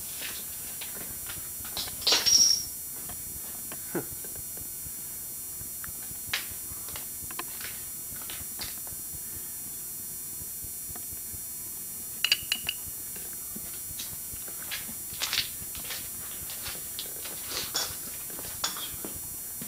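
Steady tape hiss under scattered clicks, knocks and crunches of footsteps and handling on debris. A short, high squeak rises out of it about two seconds in, and a fainter squeak comes about twelve seconds in.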